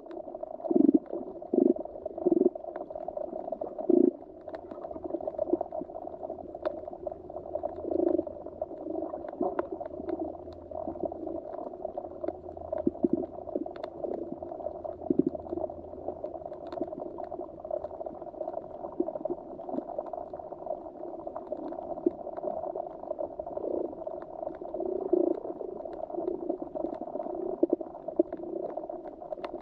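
Muffled underwater ambience: a steady low gurgling wash with irregular short low pops, several strong ones in the first few seconds.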